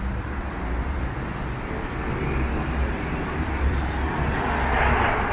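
Street traffic: a steady low engine rumble, with the hiss of a passing vehicle swelling louder near the end.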